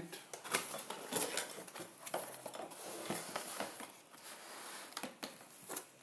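Cardboard box being opened by hand: irregular taps, scrapes and rustles of the lid and flaps, then paper and packing being handled.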